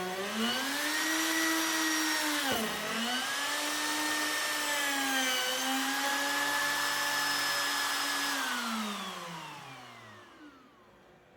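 Wood router in a flattening sled cutting across a warped white oak board. Its motor whine dips in pitch three times as the bit loads up in the cut. About eight seconds in it is switched off and winds down, falling in pitch and fading away.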